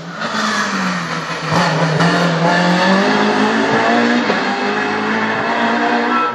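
Rally car passing at speed on a special stage, its engine revving hard and rising and falling in pitch, loudest as it goes by.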